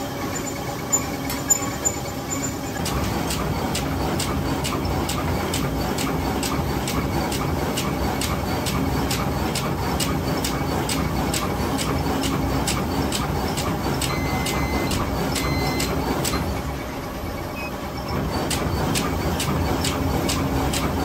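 Bubble-wrap bag-making machine running, with a steady hum and a regular clack about two to three times a second. A little past three quarters of the way in it stops for a second or two, then starts again.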